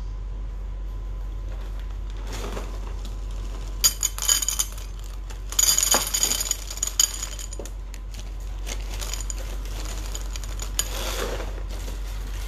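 Dry breakfast cereal rattling and pouring out of a tipped cardboard box, in two short bursts of crisp clattering about four and six seconds in, over a low steady hum.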